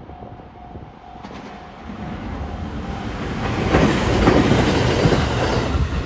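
521-series electric train approaching and passing close by, its wheel and rail noise building from about two seconds in to a peak near the end, with clicking over the rails. A level-crossing bell rings in steady repeated pulses and is drowned out as the train comes by.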